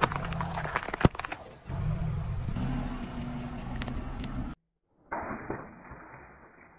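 A car tyre rolling slowly over objects, with the car's engine running low underneath: crackling and one sharp, loud crack about a second in as a plastic soda bottle gives way, then steady crunching. After a short silent cut, a sudden burst with a spray of liquid from under the tyre, fading off.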